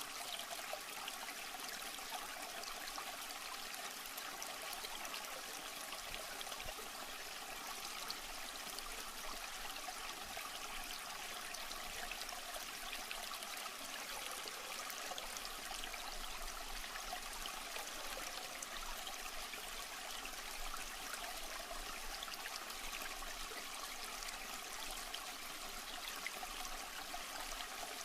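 Steady trickling and splashing of water from an aquarium filter, running evenly without a break.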